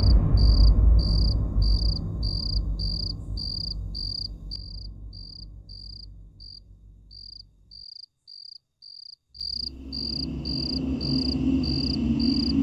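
A cricket chirping steadily, about two chirps a second, as night ambience. Under it a low rumbling drone fades away, drops out about eight seconds in and returns a second or so later.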